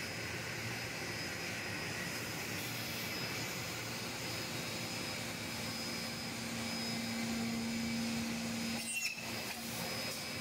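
Two-head hinge boring machine running steadily with a motor hum that strengthens for a few seconds, then breaks off briefly in a short clatter about nine seconds in.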